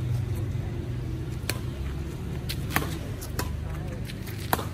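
Badminton rally: sharp pops of rackets striking a shuttlecock, about one a second, over a steady low rumble of street traffic.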